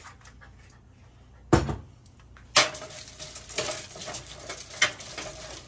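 A glass oil bottle is set down on the counter with a single knock about a second and a half in. From just before the middle, aluminium foil lining a baking sheet crinkles and crackles as a hand spreads olive oil over it.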